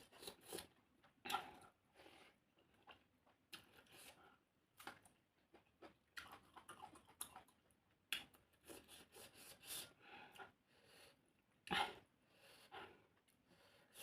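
A person chewing and eating oily fish close to the microphone: quiet, irregular mouth sounds and smacks, with louder crunchy bites about a second in and near the end.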